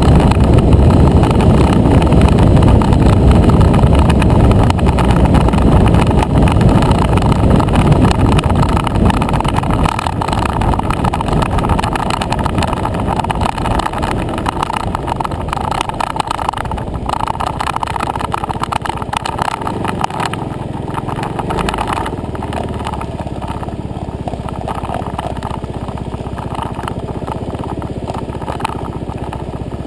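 Motor scooter riding along a road: engine and wind rush on the mounted camera, easing off steadily as the scooter slows toward a stop.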